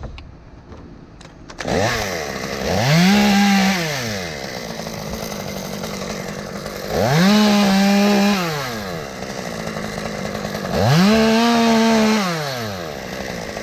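Gas chainsaw running, revved up to full speed three times, each rev held about a second before dropping back to idle.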